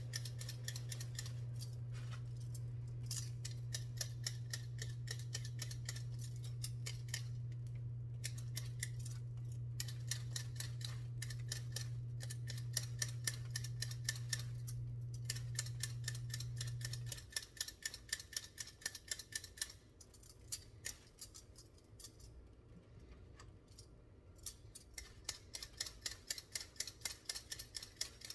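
Hand potato peeler scraping along raw potatoes in quick, repeated strokes, with short pauses between runs. A steady low hum underneath stops about two-thirds of the way through.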